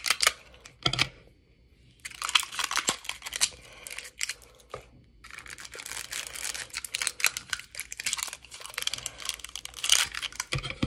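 Stiff clear plastic packaging crinkling and crackling in irregular bursts as it is cut with scissors and pulled apart by hand, with a quiet pause between the first and second bursts.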